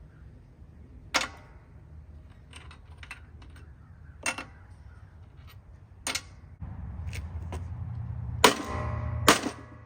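Sharp blows on the casing of a junk Craftsman lawnmower engine as it is beaten open: about five ringing metal strikes a second or two apart, with smaller clicks and taps between them. A low rumble comes in over the last few seconds.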